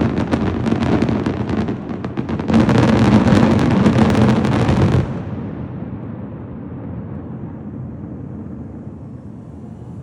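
Fireworks display: a rapid barrage of bangs and crackling that builds to a dense, loud volley, then stops abruptly about five seconds in. A low rumble is left, slowly fading.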